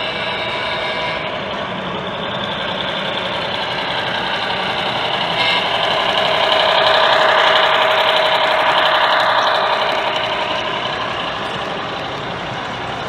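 Model Milwaukee Road Hiawatha passenger train, led by streamlined diesel units, running past close by. A steady diesel engine sound and rolling wheel noise grows louder to a peak about halfway through, then fades as the coaches go by.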